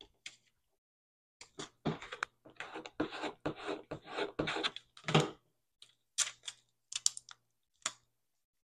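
Clear transfer tape and adhesive vinyl being handled: irregular crinkles and crackles of the plastic film and its grid-printed backing as it is pressed onto a small acrylic keychain blank and peeled.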